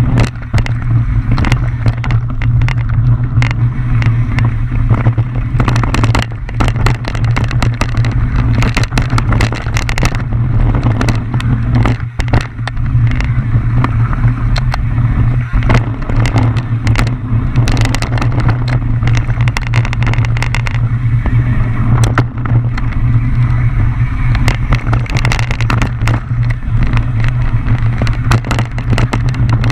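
Mountain bike descending a rough dirt trail, heard from a camera riding along: a loud, steady low rumble with frequent sharp clatters and knocks from the bike over bumps throughout.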